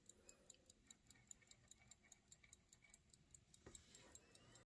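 A 1908 pocket watch's movement ticking faintly and evenly, about five ticks a second.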